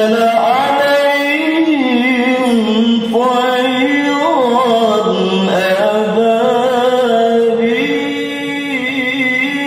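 A man reciting the Qur'an in the melodic tilawah style: one long phrase on a single breath, held notes with ornamented turns rising and falling in pitch, amplified over a loudspeaker.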